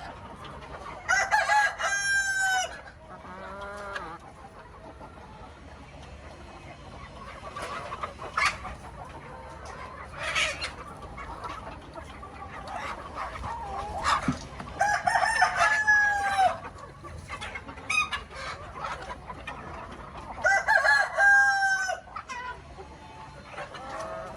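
Chickens: a rooster crows three times, each crow about a second and a half long, about a second in, past the middle, and near the end, with short scattered clucks between.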